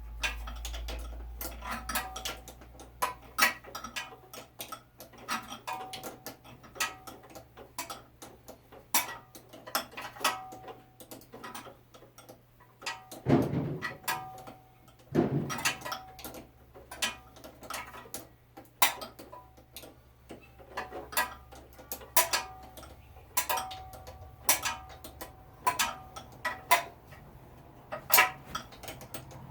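Hand tools working on a small engine's starter: irregular sharp metallic clicks and clinks, some with a brief ring, and two heavier knocks near the middle, over a faint steady low hum.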